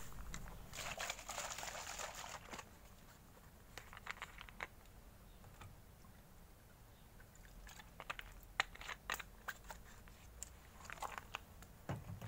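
Thin clear plastic bottle being handled, crinkling and clicking in several short bursts.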